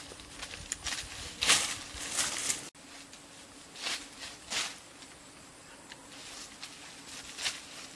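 Rustling in leaf litter and undergrowth: a few footsteps and brushing sounds as a person moves through forest vegetation.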